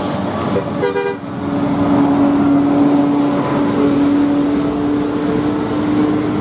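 A large bus on the road with road and engine noise, and a steady pitched tone held from about a second in, just after a brief pitched sound.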